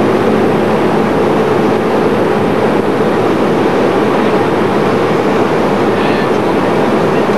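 Steady rushing flight-deck noise of a Boeing 747-217B in flight, airflow and engine noise with a constant low hum under it.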